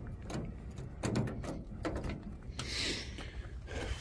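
A few sharp clicks and knocks of a work truck's metal compartment doors and latches being tried, all of them locked, over a steady low rumble of wind on the microphone.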